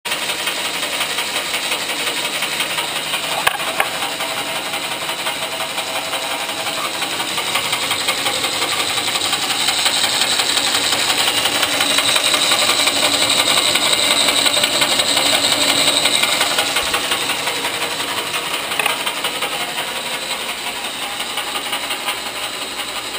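A machine running steadily: a loud, even noise that grows louder around the middle and eases off again.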